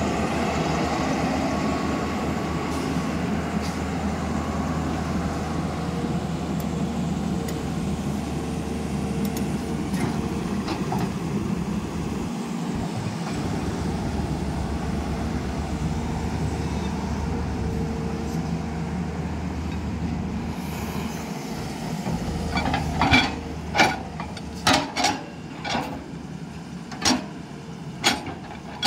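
Tata Hitachi 200LC crawler excavator's diesel engine and hydraulics running steadily under load as it swings and digs. From about three-quarters of the way in, a run of sharp knocks and clatters as the steel bucket scrapes into rocky ground and strikes broken concrete slabs.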